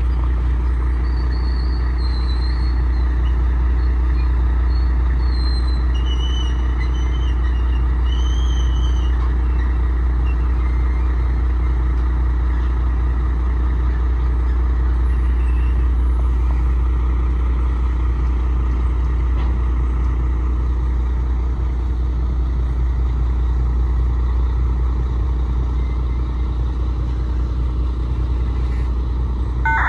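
Diesel-electric freight locomotives running with a loud, steady low rumble while switching cars on a grain spur. A few short high-pitched chirps come through in the first ten seconds.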